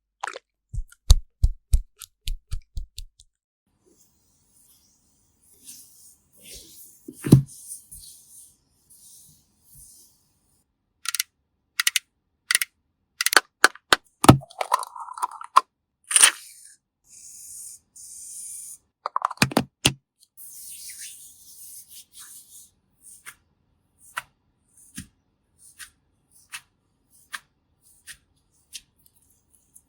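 Close-miked ASMR makeup sounds: a run of sharp clicks and taps from cosmetic cases and tools, with stretches of soft brushing on a pumpkin's skin, and scattered light ticks near the end.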